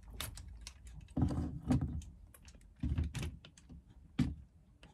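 Handling noise from a small metal-tube rear-wheel pet cart and its fabric stirrups: light knocks, clicks and rustles in about four short bursts.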